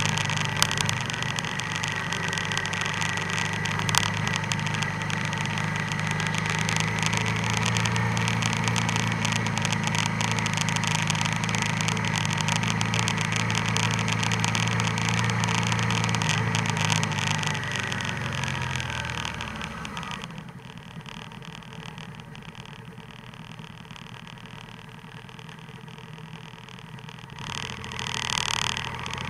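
Motorcycle engine running steadily at low road speed with wind noise. About eighteen seconds in the engine eases off and the bike slows to a much quieter idle. Near the end the engine picks up briefly.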